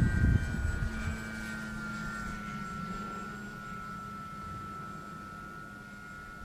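Scale RC Yak 54 airplane's motor and propeller flying overhead: a steady high whine that slowly drops in pitch and fades as the plane moves away. A brief low rumble sits at the start.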